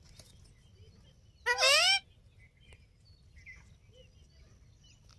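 Indian ringneck parrot giving one loud, wavering call about a second and a half in, then a few faint soft chirps.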